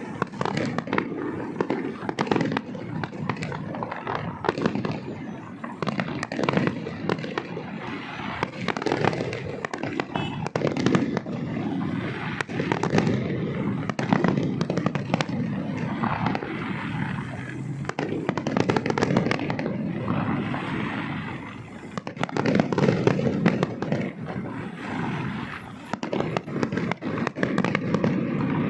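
Fireworks going off in rapid succession: a dense run of bangs and crackles with no real pause.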